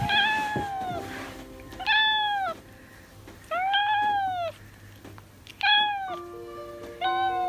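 Domestic black-and-white cat meowing repeatedly: five loud meows, each rising and then falling in pitch, greeting its owner on return home.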